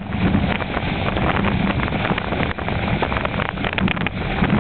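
Wind buffeting the microphone in gusts of about 20 knots, over water rushing and splashing along the hull of a Sailbird trimaran under sail.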